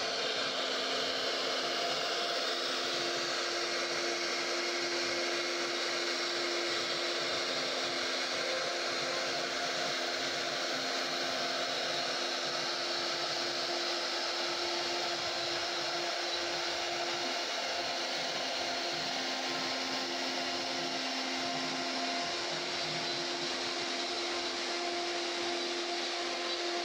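CNC router spindle running and its cutter milling wood: a steady whirring hiss with a low hum underneath.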